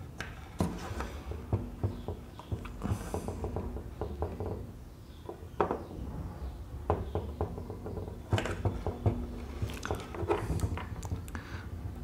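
Soldering a wire onto a battery terminal: scattered light clicks, taps and scrapes of the soldering iron tip and the wire against the metal terminal, with a brief faint hiss about three seconds in.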